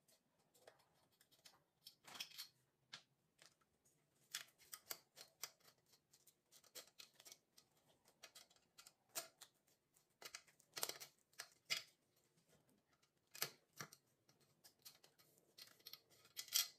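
Screwdriver turning screws out of a chair's wooden seat board by hand: faint, irregular small clicks and metallic scrapes in short clusters, a few louder ones standing out.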